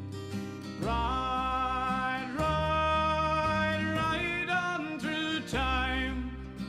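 Background country-western song: acoustic guitar under a lead melody of long-held notes, with no sung words.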